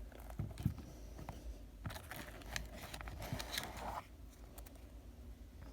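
Faint handling sounds of a watch box being opened: a few light clicks, then about two seconds of scratchy rustling with small taps.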